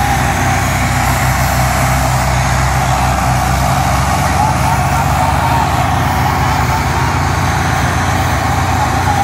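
Tractor's diesel engine running steadily with a low, even drone, as it pulls a sugar cane load.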